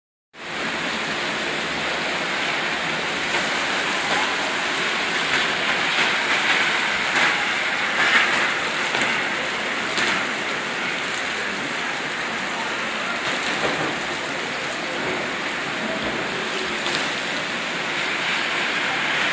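Heavy rain falling steadily, an even hiss of rain on wet pavement with a few sharper drop taps now and then.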